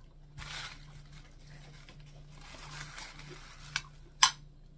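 Eating sounds at a plate of fried dried fish: soft rustling as the crisp fish is handled and broken, then a small clink and a sharper, louder clink of a metal spoon against the ceramic plate near the end.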